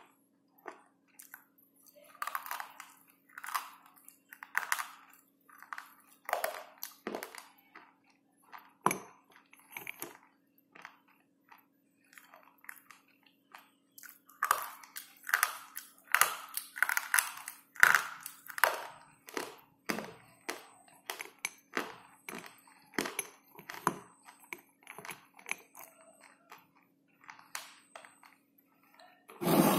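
Slate pencil being bitten and chewed, a run of irregular, crisp crunches close to the microphone.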